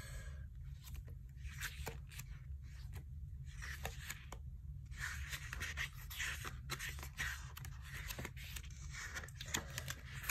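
Photobook pages being flipped and handled: irregular paper rustling and scraping with small ticks as the pages turn.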